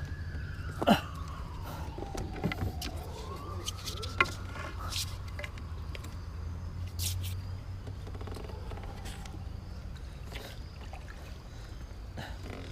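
Kayak and paddle handling sounds: a few sharp knocks, the loudest about a second in and about four seconds in, and a long faint squeak that slowly falls in pitch, then rises again, as the hull rubs over an obstacle, over a steady low rumble.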